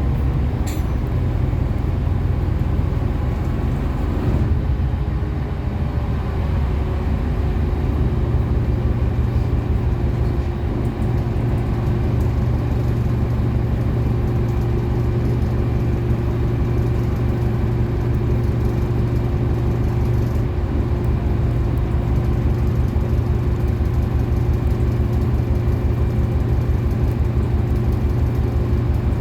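City bus engine running steadily with road noise while the bus drives, a constant low hum with steady tones.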